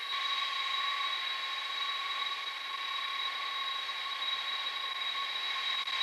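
KC-10 Extender turbofan engines idling: a steady high whine of two held tones over an even hiss, with little low rumble.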